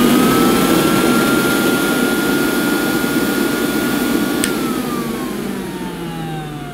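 1969 Hoover Dustette Model 2614B hand-held vacuum cleaner running at full speed with its inlet sealed against a suction gauge: a steady high whine over the rush of the motor. About four and a half seconds in it is switched off with a click and the motor winds down, its whine falling steadily.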